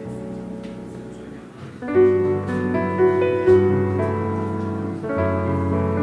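Instrumental background music with piano-like sustained notes, soft at first and growing louder about two seconds in.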